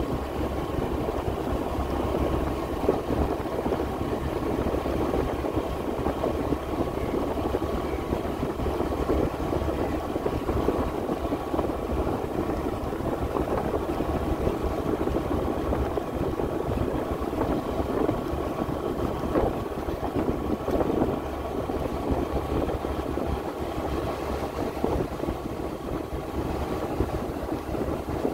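The engine of a moving road vehicle runs steadily at an even cruise, mixed with road and wind noise and a faint steady whine.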